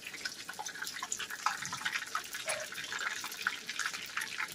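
Chicken wing frying in peanut oil in a cast-iron skillet: the hot oil bubbles and crackles with a steady, irregular run of small pops.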